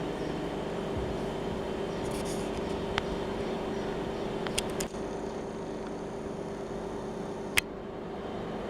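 Steady mechanical hum with a few sharp clicks: one about three seconds in, two close together near the middle, and one near the end.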